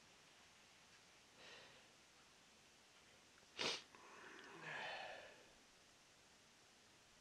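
Near silence, broken about three and a half seconds in by one short, sharp burst of breath, then a breathy rush of air lasting about a second and a half.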